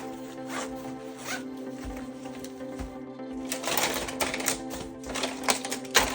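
Background music with steady held tones, over scattered clicks and rustling from toy parts and packaging being handled. The clicks and rustling are busiest about four seconds in, and there is a sharp click near the end.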